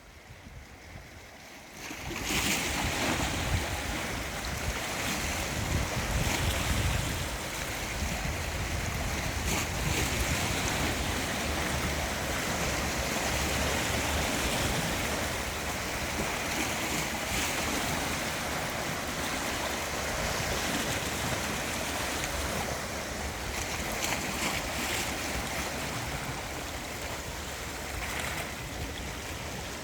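Gentle sea waves washing in steadily, a continuous wash of surf that swells up about two seconds in.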